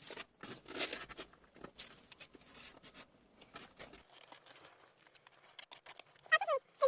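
Eating sounds: irregular small scrapes and taps, like spoons working rice off plates, for about four seconds, then quieter. A short high-pitched vocal sound comes in near the end.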